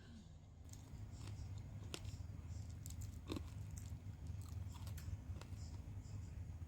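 A chihuahua chewing food, making irregular small crunches and clicks.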